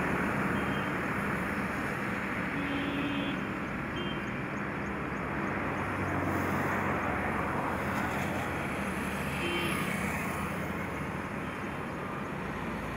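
Steady road traffic noise: heavy trucks' engines running with tyre noise from passing vehicles on a highway.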